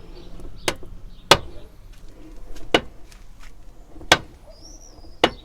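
Toyota Corolla E150 door check knocking as the door is swung, five sharp clicks roughly a second or so apart. The owner calls it a terrible knock and takes it most likely for worn-out door-check guides.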